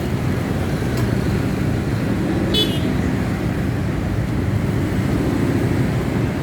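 A steady engine rumble of a vehicle running nearby, with a brief metallic clink about two and a half seconds in.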